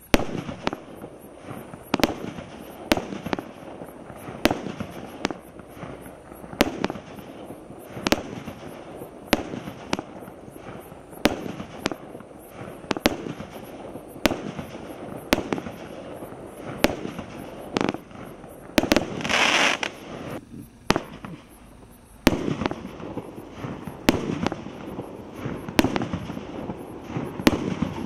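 Consumer firework cakes firing shot after shot, each a sharp bang of a bursting star shell, about one a second. About two-thirds through there is a brief hissing rush, then a short lull before another run of shots starts.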